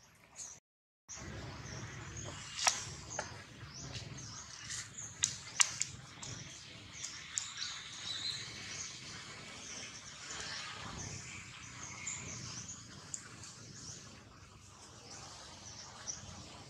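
Outdoor ambience of birds chirping, with dry leaves crackling underfoot as a small monkey moves through the leaf litter; a few sharper crackles stand out.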